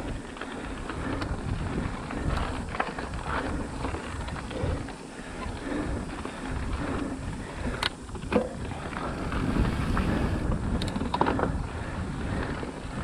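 Mountain bike riding fast down a dirt singletrack: tyres rolling over packed dirt and loose stones, with wind buffeting the microphone and the bike rattling over bumps. A few sharper clicks and knocks come about eight seconds in and again near eleven seconds.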